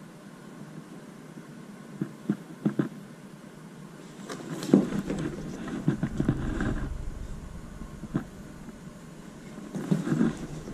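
Handling noise from a cardboard box and its paper lining as baseball caps are lifted out and put back: rustling with a few sharp taps and knocks. A low rumble comes in about halfway through.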